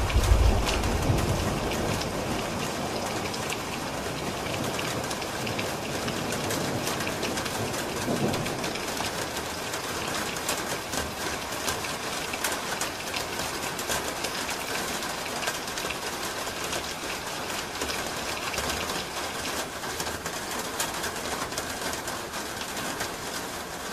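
Steady rain falling on a roof, with many individual drops ticking through a constant hiss. A low rumble of thunder dies away in the first couple of seconds.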